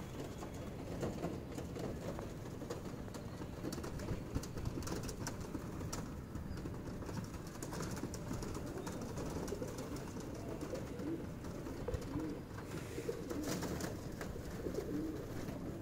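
A flock of feral rock pigeons cooing, soft low coos that come more clearly in the last few seconds, with scattered sharp taps throughout.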